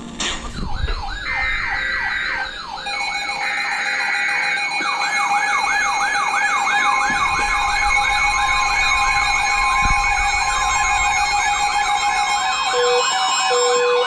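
Electronic siren tones layered together: a rising yelp that repeats about three times a second, a fast warble higher up, and steady tones. Short high beeps come twice in the first few seconds, and lower beeps sound near the end.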